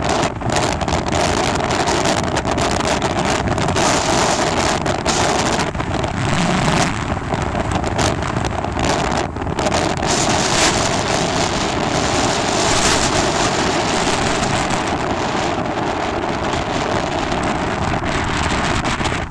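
Strong wind buffeting the microphone, gusting and crackling, over the low running noise of heavy diesel machinery: a tracked excavator and a bulldozer.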